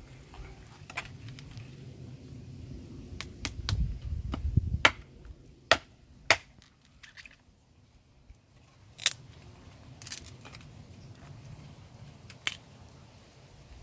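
A series of sharp knocks and clicks at irregular intervals, with a low rumble about four to five seconds in.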